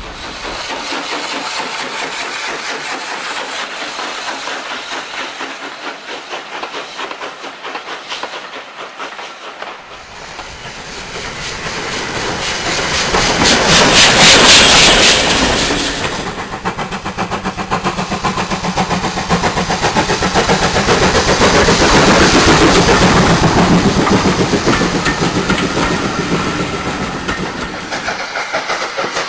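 Model railway trains running past on the layout: a continuous rattle and rumble of wheels on track and small motors. It swells to a peak as a train passes close about halfway through and again a little later, with a thin steady high whine from about a third of the way in until near the end.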